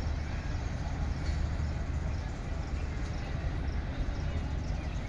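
Passenger train rolling away slowly down the track, a steady low rumble of its coaches on the rails.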